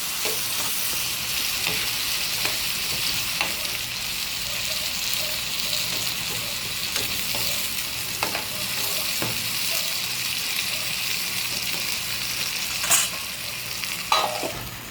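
Ground onion, garlic and pepper frying with tomatoes in hot oil, a steady sizzle, with occasional clicks and knocks and one louder knock near the end.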